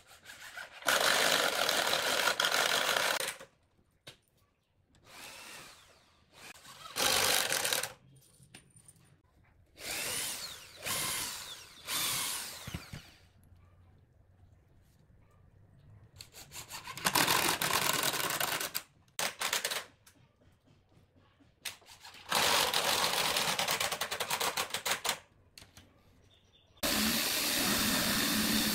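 Cordless drill running in a series of bursts, each one to three seconds long, working on pallet wood. About 27 seconds in it gives way to a Makita jigsaw cutting steadily through a pallet board.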